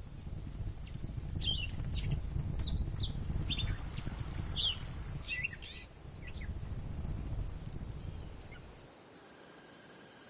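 Birds chirping over a steady high insect drone, with a low rumbling noise underneath that fades out about nine seconds in.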